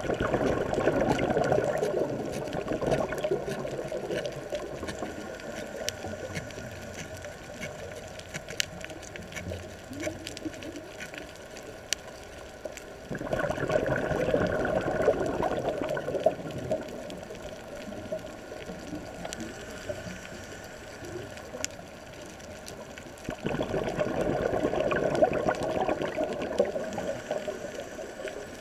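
Scuba diver's exhaled air bubbling out of the regulator, heard underwater three times, about every ten to twelve seconds. Each rush of bubbles lasts a few seconds and fades, with a quieter hiss and scattered sharp clicks in between.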